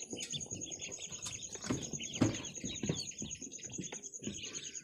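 A brood of two-day-old Khaki Campbell and local-cross ducklings peeping constantly, many short high peeps overlapping.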